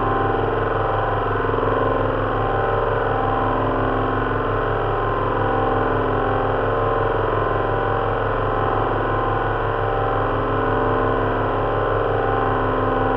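Simulated drone of an Avro Lancaster's four Merlin V12 engines running together steadily. It is built from recordings of a synthesized Merlin firing sequence, with fan-heater noise mixed in to stand in for propeller wash.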